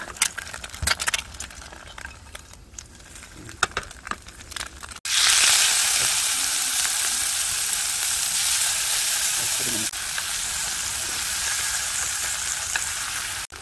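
Marinated meat and sauce sizzling loudly in a frying pan on a portable butane stove, stirred with chopsticks. The loud sizzle starts suddenly about five seconds in; before it, only a few light clicks of a fork against the pan.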